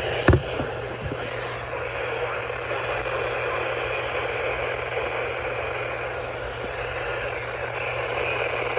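Steady static hiss with a low hum from a broadcast receiver between alerts, with a sharp click shortly after the start.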